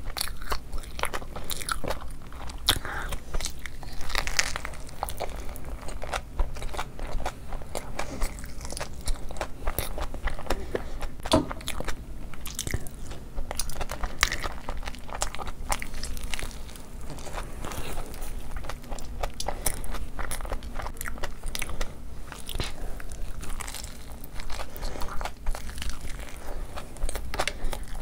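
Close-miked chewing and crunching of crispy fried food: a dense, irregular run of sharp crackly bites and chews.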